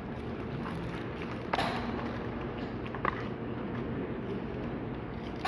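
Steady background noise of a restaurant dining room, with two short sharp knocks or clicks, about a second and a half in and again about three seconds in.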